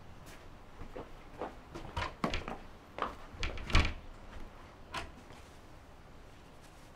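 Clicks, knocks and rattles of a front door's handle and latch being tried on a locked door, in a quick irregular run, the loudest knock near the middle.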